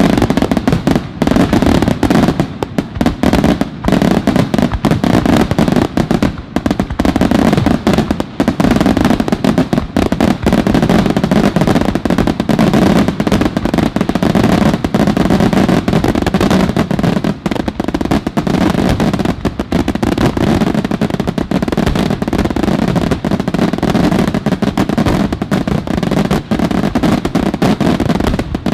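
Aerial fireworks shells bursting in a dense finale barrage, the bursts running together with hardly a pause.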